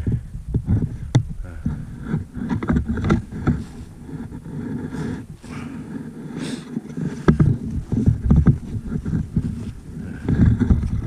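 Footsteps through snow while walking: an irregular run of low, muffled thumps and rustling, with a few sharper clicks.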